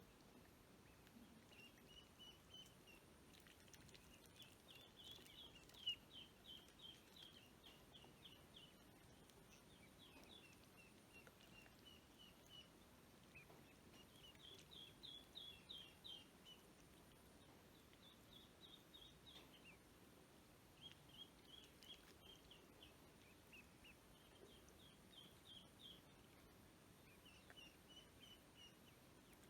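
Ducklings peeping faintly in quick runs of short high notes, bout after bout with brief pauses between. One sharp click about six seconds in.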